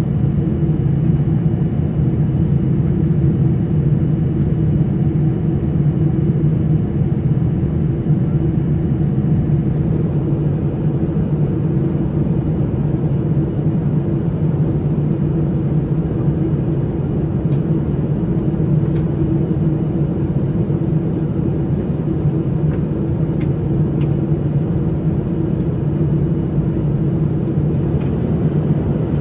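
Steady low rumble of a Boeing 787-10's GEnx engines and airflow, heard from inside the passenger cabin, even and unchanging throughout.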